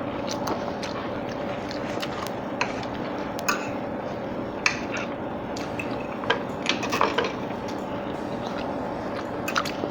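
Close-miked wet chewing of a sloppy eggplant cheeseburger, with scattered sharp mouth clicks and smacks, over a faint steady background hum.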